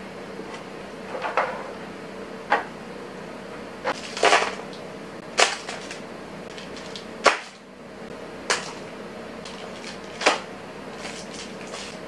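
Small drink cartons and clear acrylic organizer bins being set down and shifted on a counter: a series of light knocks and clacks, about eight, spread irregularly.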